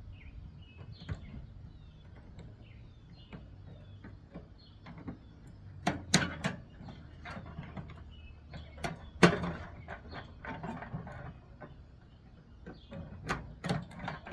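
Hand tools clicking, tapping and knocking on the plastic and metal parts of a microwave being dismantled, with sharper knocks about six and nine seconds in and a cluster near the end.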